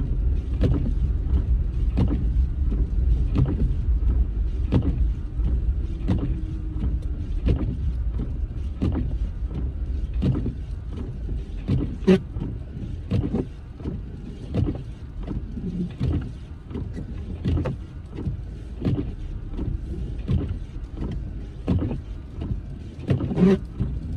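Car interior while driving: a steady low road-and-engine rumble, with the windshield wipers beating back and forth in an even rhythm, about three strokes every two seconds. The wipers are running continuously to clear falling snow from the windshield.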